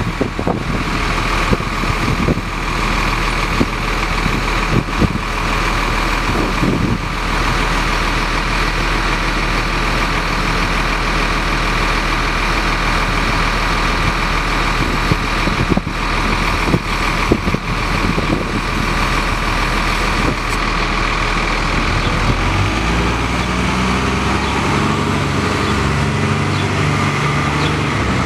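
2001 NovaBUS LFS city bus's Cummins ISC diesel idling, with a steady high whine over it, then accelerating away about 23 seconds in, the engine note climbing in steps.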